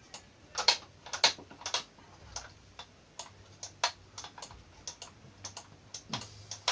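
Irregular sharp clicks and taps of plastic parts of a Moulinex food grinder being handled and fitted together, ahead of its test run.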